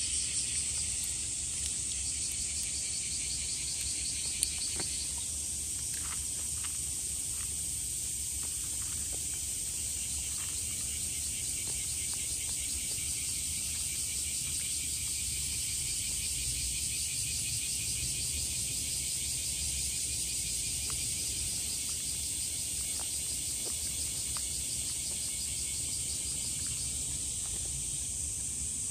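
A steady, high-pitched chorus of insects buzzing without a break. A single faint click comes about four and a half seconds in.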